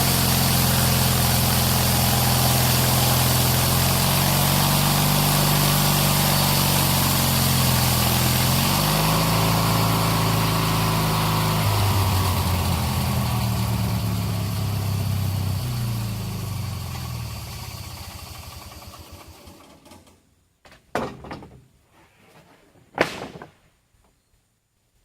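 Sawmill's small engine, taken off an old Snapper lawn mower, running steadily, then dropping in pitch in steps and dying away to a stop about 20 seconds in. Two short knocks follow near the end, the second one loud.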